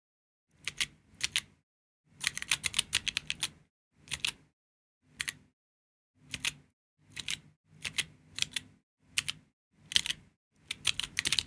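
Georgi stenographic keyboard keys clacking as chords are pressed: short clusters of quick clicks, one stroke after another with brief pauses, and a faster run of strokes about two seconds in.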